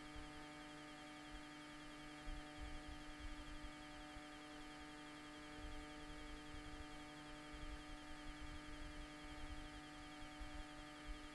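Steady electrical hum with several overtones, unchanging throughout, over an irregular low rumble.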